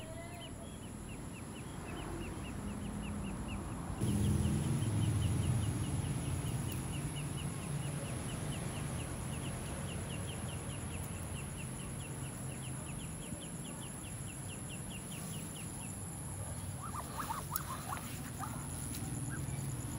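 Muscovy ducklings peeping: a steady run of short, high, falling peeps about three a second, with a few lower calls near the end.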